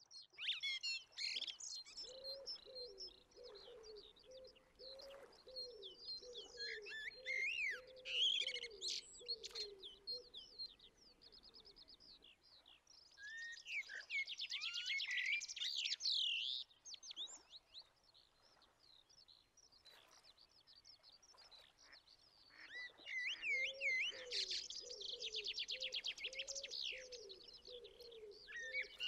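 Wild birdsong: several birds singing high whistles and rapid trills. A lower, wavering call runs steadily beneath them for long stretches near the start and again near the end.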